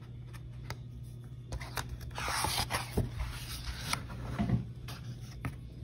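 A picture book's paper page being turned and the book handled: a rustling swish from about a second and a half in that lasts a couple of seconds, with a few light taps and clicks around it.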